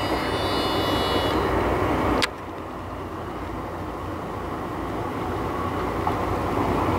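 Steady low rumble of a fishing boat's engine under sea and wind noise. In the first second a high thin whistling runs on from the cast, which fits line running off a spinning reel. About two seconds in there is one sharp click, after which the sound is quieter.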